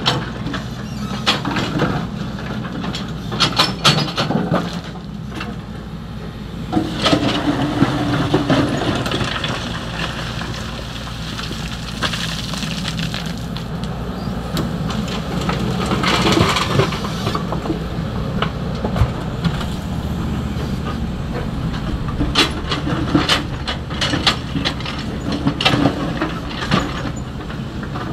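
XCMG 75 excavator's diesel engine running steadily under load while the bucket works sand-and-gravel fill: repeated metal clanks and knocks, with stretches of hiss and rattle as the material is scooped and poured.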